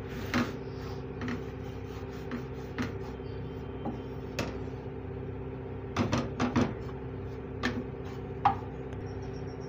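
Wooden spatula scraping and knocking against a steel kadhai as wheat flour is stirred and roasted in ghee over low heat. Irregular taps, with a quick cluster of them about six seconds in, over a steady hum.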